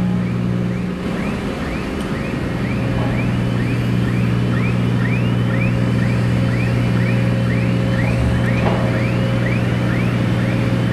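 Heavy dockside machinery running with a steady low hum, over which a high electronic warning chirp repeats about three times a second.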